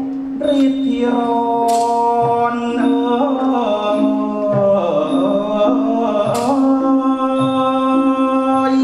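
Orchestra playing the accompaniment for a Khon masked dance-drama: long held chords, with two sharp strikes that ring on, one about two seconds in and another past six seconds.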